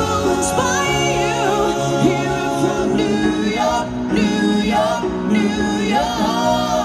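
Live rock band playing through the stage PA, with a singer's voice carrying the melody over drums, bass and electric guitar.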